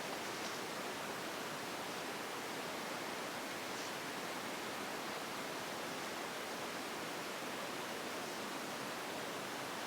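Steady, even hiss of background noise, with a few faint short scratches.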